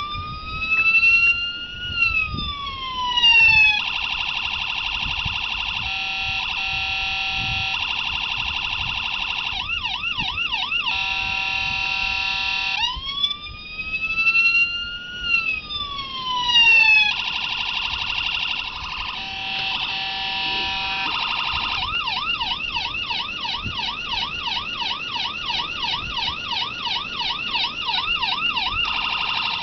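Electronic siren module in a 1/24-scale model police Tahoe, sounding through a small speaker and cycling through siren tones. It plays a rising-then-falling wail twice, steady tones in between, and a fast yelp warble, which runs for the last several seconds.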